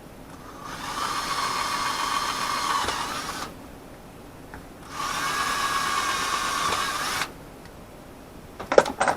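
Small power drill running in two bursts of about three seconds and two seconds, steady in speed, followed by a short clatter near the end.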